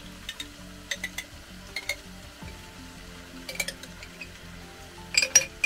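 A metal spoon clinking and scraping against a glass jar as sauce is scooped out over a frying pan. There are several sharp clinks spread through, the loudest pair near the end.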